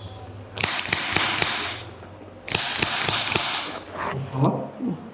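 Chiropractic adjustment: two bursts of rustling, each with several sharp cracks of the patient's joints, then a short vocal sound from the patient near the end.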